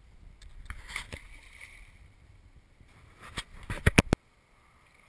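A few sharp knocks and clicks, with a loud burst of them near the end that cuts off suddenly, leaving a faint steady background.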